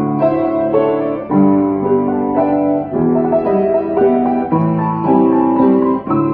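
Upright piano played solo: a melody over chords, the notes changing continually.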